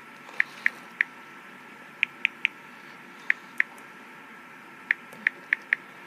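About a dozen short, sharp clicks at irregular intervals, in small clusters, from a Furby toy, over a faint steady high hum.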